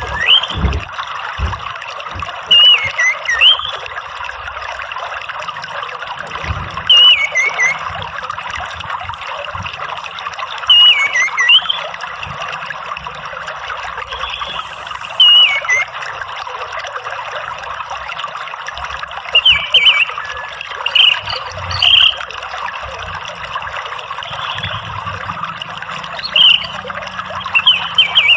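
Orange-headed thrush singing short, sweeping whistled phrases about every four seconds, with a quicker cluster of notes around the middle, over a steady trickle of running water.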